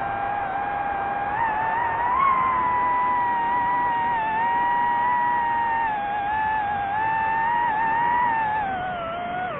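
DJI FPV drone's electric motors and propellers whining at a steady pitch. The pitch climbs about two seconds in, holds, then sinks near the end as the throttle eases.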